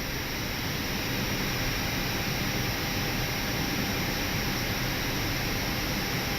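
Steady cockpit noise of an Airbus A319 slowing on its landing roll, with the engines at idle reverse thrust.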